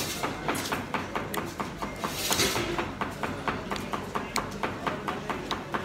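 Rapid, even knocking, about four to five sharp knocks a second, with a brief hiss about two seconds in.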